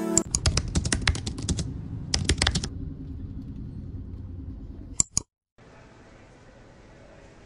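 Keyboard-typing clicks: a quick run of about a dozen keystrokes, a short pause, then a run of about five more, over a low steady rumble. Two sharp clicks about five seconds in, then a short dropout and faint background hiss.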